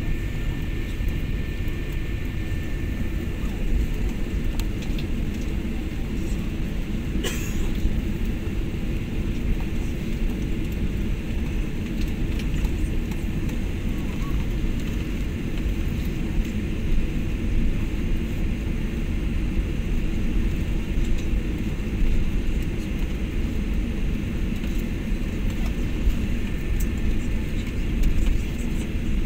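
Steady cabin rumble of a jet airliner taxiing after landing: engines at low power and the wheels rolling on the tarmac, heard from inside the cabin. A single brief click about seven seconds in.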